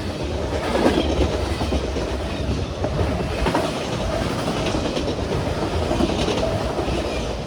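Norfolk Southern manifest freight train's cars rolling past at about 50 mph: a steady wheel-on-rail rumble with repeated clatter from the wheels.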